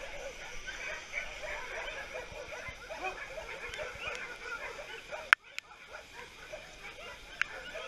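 Many shelter dogs barking and yelping at once, a dense overlapping chorus of short barks. There are two sharp clicks, about five seconds in and again near the end.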